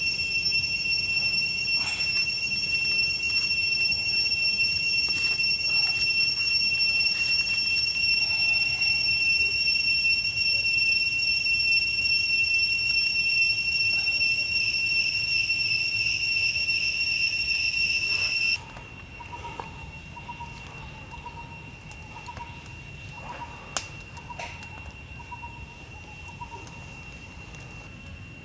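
Loud, steady, high-pitched drone of cicadas, one unbroken tone that cuts off suddenly about two-thirds of the way through, leaving a quieter drone and a soft warbling. A few faint snaps come from a small wood campfire, one sharper near the end.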